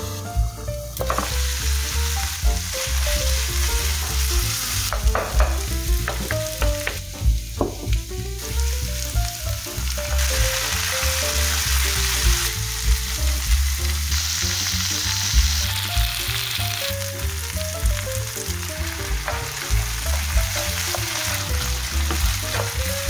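Sliced onions sizzling in oil in a nonstick frying pan as they are sautéed toward caramelization, stirred and pushed around with a wooden spatula. The sizzle swells louder a few times.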